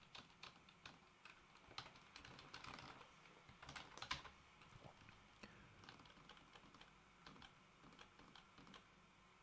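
Faint typing on a computer keyboard: irregular key clicks, with a quick louder flurry about four seconds in, dying away near the end.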